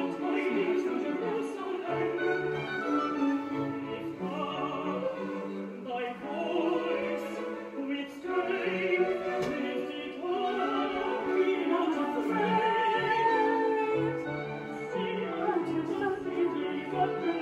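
Classical music with operatic singing over an orchestra, the singer's voice wavering in vibrato.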